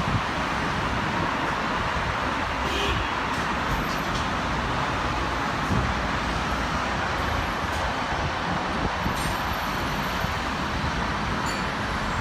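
Steady, even noise from a departing jet airliner's engines, unchanging in level.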